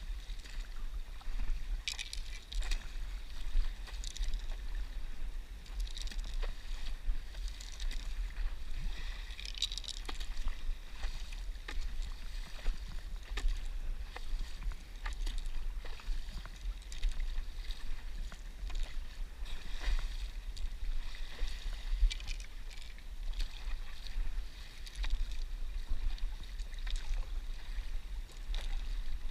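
Paddle strokes splashing and water lapping against a stand-up paddleboard, in short irregular splashes every couple of seconds over a steady low rumble.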